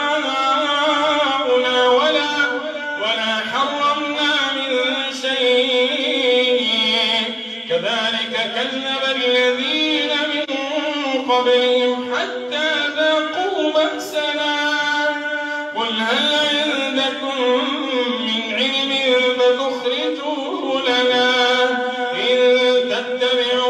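A man reciting the Quran in a slow, melodic chant through a microphone, with long held notes in phrases broken by brief pauses.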